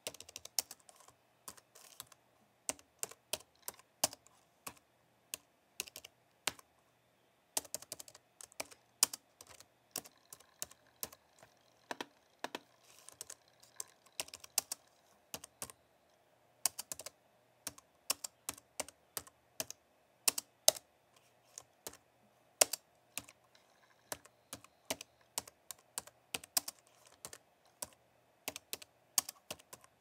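Typing on a slim low-profile computer keyboard: quick, light key clicks in uneven runs with brief pauses between them.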